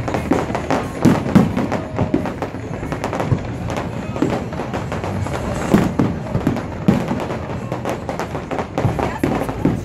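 Aerial fireworks shells bursting in quick succession, a steady crackle of small reports with louder bangs standing out about a second in and again around six and seven seconds in.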